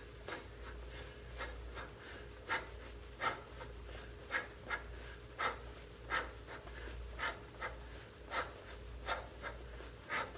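A boxer's sharp, hissing exhales while shadowboxing, one with each punch, about one to two a second, with panting between them.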